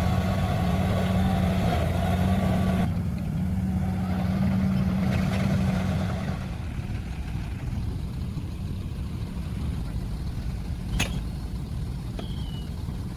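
Diesel engine of heavy earthmoving machinery running steadily, louder for the first six seconds, then easing to a quieter, lower running sound. A single sharp click comes about eleven seconds in.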